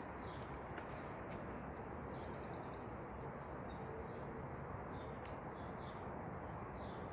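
Faint bird chirps, with a short quick trill about halfway through, over a steady background hiss.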